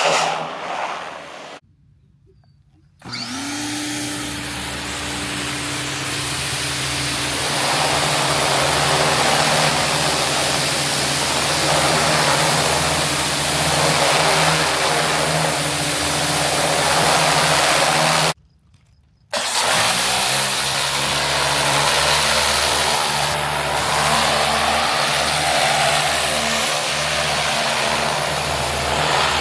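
Greenworks 1900 PSI electric pressure washer running, its motor and pump humming under the loud hiss of the water jet spraying siding. It cuts out twice briefly and starts up again with a short rising whine.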